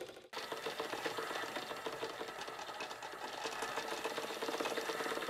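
Stuart S50 model steam engine running fast on live steam and belt-driving a small generator: a rapid, even mechanical clatter with a steady hum under it.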